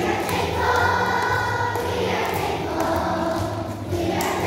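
A group of schoolchildren singing a song together in unison, holding long notes in phrases that break about two seconds in and again near the end.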